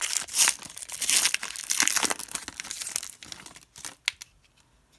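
A 2016-17 Upper Deck Series 1 hockey card pack's wrapper crinkling and tearing as it is ripped open, a dense crackle for about three seconds, then a couple of light clicks.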